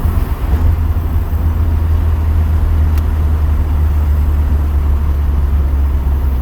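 Car engine running steadily, a constant low drone that neither rises nor falls in pitch.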